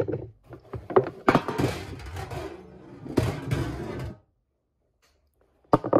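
A metal baking pan being handled and washed at a kitchen sink: irregular knocks and clatter that cut off suddenly about four seconds in.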